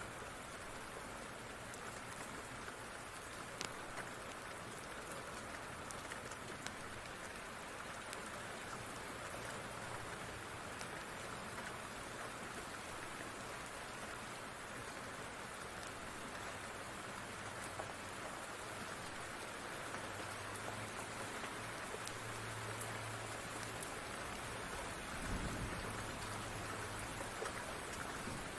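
Steady rain, with occasional sharp crackles from a wood fire. A low rumble builds in the last third and swells about 25 seconds in.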